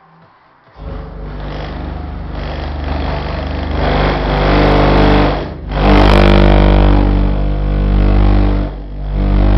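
Car audio system with six 15-inch Cactus subwoofers on TRF amplifiers playing heavy bass at very high volume. It comes in about a second in, grows louder and dips briefly twice.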